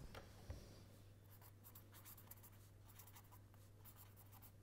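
Marker pen writing, faint: a quick run of short scratchy strokes starting about a second in.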